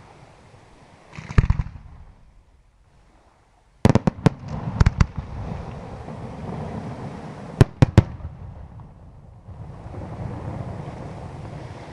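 Aerial fireworks bursting. A deep boom about a second in, then a quick run of sharp bangs about four seconds in and two more near eight seconds, with a low rumble between the reports.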